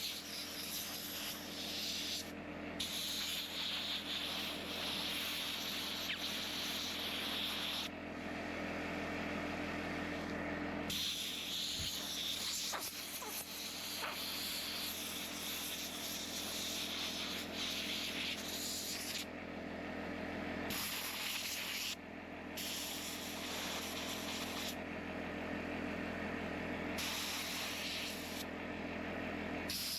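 Compressed air hissing from an air nozzle while a chainsaw is blown clean of sawdust and oil. The high part of the hiss cuts out and comes back several times.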